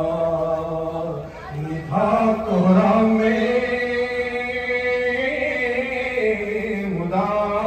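A man chanting an Urdu devotional poem in praise of Abbas into a microphone, in long drawn-out held notes. The pitch climbs about two seconds in, holds, and falls back near the end.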